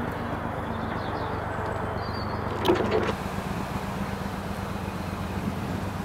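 Narrowboat diesel engine ticking over with a steady low throb. A single sharp knock comes about two and a half seconds in.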